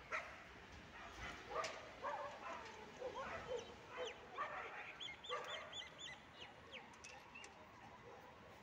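A dog barking several times, then a bird giving a quick run of short high chirps, about four a second.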